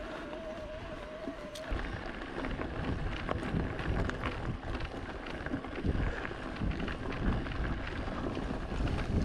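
Santa Cruz Heckler electric mountain bike being ridden on a trail: wind buffets the microphone while the tyres rumble and small knocks and rattles come from the bike. A wavering whine from the drive motor sounds for the first second and a half, then stops.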